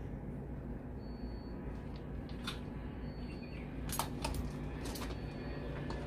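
Several sharp metallic clicks and clinks of gauge manifold hose couplings being handled and fitted to an air-conditioner outdoor unit's service valve, to check the refrigerant charge. They are loudest about four seconds in, over a steady low hum.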